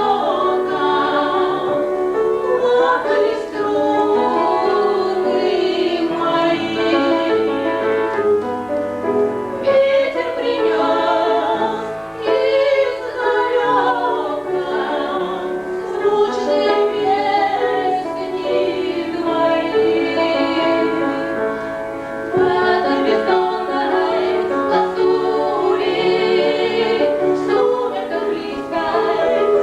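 Women's voices singing a song in a classical, operatic style, with sustained, wavering notes.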